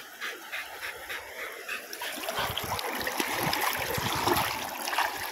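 River water splashing and sloshing close to the microphone, stirred by a person's arm moving through the shallows. The splashing is uneven and grows louder about two seconds in.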